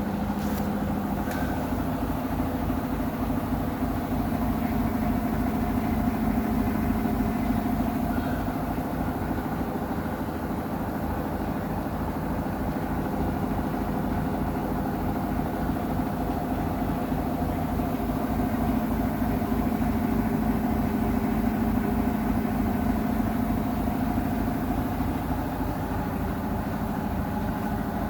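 Samsung WW90DG6U25LEAH washing machine running with a loud, steady mechanical hum and drone, swelling and easing slowly twice. A noise the owner finds too loud for a new machine.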